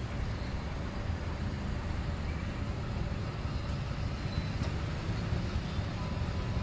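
Street traffic: cars passing slowly close by, a steady low rumble of engines and tyres.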